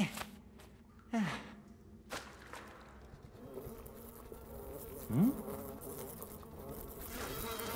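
Faint steady buzzing drone in an echoey cave, broken by a few short, low sliding plops: one right at the start, one about a second in and one around five seconds in.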